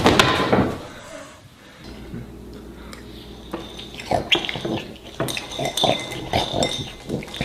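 A cloth whooshes as it is swept through the air at the start. Then a metal spoon clinks again and again against a ceramic cereal bowl as someone eats.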